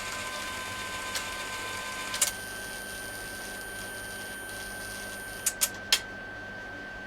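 Epson Stylus Pro 4880 wide-format inkjet printer running, with a steady high whine and hiss from its mechanism. There is a click about two seconds in, and three sharp clicks in quick succession near the end.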